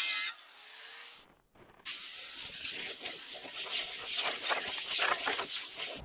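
Corded angle grinder with an abrasive disc grinding rust off a steel wheel rim, with a scratchy, uneven sound as the disc works the metal. It stops about a third of a second in, is nearly silent for a moment, then starts again at about two seconds and keeps grinding.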